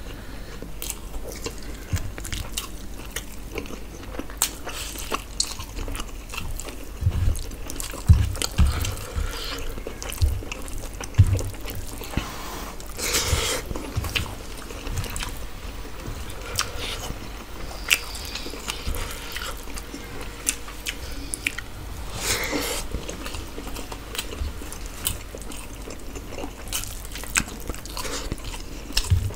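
Close-up eating sounds: two people chewing and smacking on fried rice and chicken curry eaten by hand, with many small wet mouth clicks. A few low thumps come about a third of the way in.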